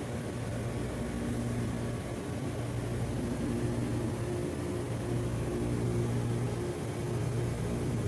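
Refrigeration unit running steadily after a restart: a low, even hum with an airy hiss over it, as the system pulls the temperature down.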